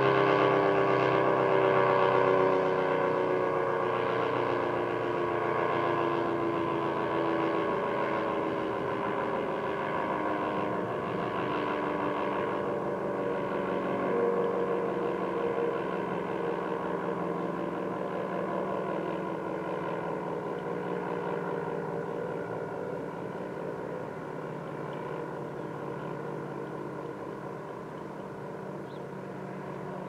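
ACA Cyclone 125 electromechanical tornado siren winding down after its test signal, its tone slowly falling in pitch and fading away.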